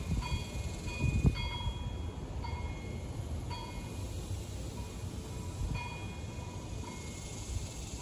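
Wind blowing over the microphone with a low rumble, gusting about a second in, while a wind chime rings short, clear metallic notes several times.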